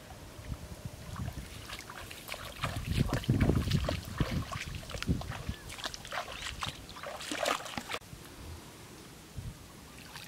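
Footsteps wading through a flooded rice paddy, legs splashing through shallow water in an uneven stride. The splashing dies down about eight seconds in.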